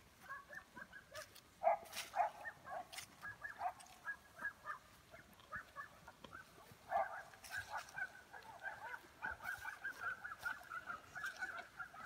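A flock of birds calling in quick succession with short calls, getting busier about halfway through, with a few sharp clicks.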